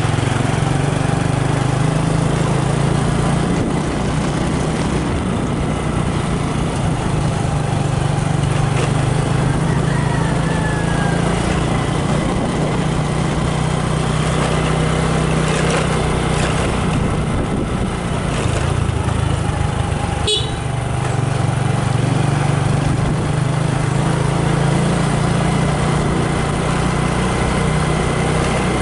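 Motorbike engine running steadily as the bike rides along, its low note easing off a couple of times. A short high chirp comes about two-thirds of the way through.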